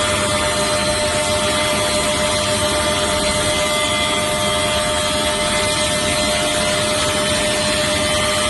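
Multi-blade wood rip saw running with a steady, unbroken whine over dense noise as a timber plank is fed into it.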